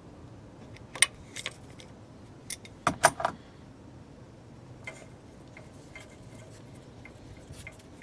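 Metal spanner clinking against the oil pressure switch's hex and the surrounding engine metal while the switch is worked loose, in a few sharp irregular clinks, the loudest cluster about three seconds in. Fainter scattered ticks follow.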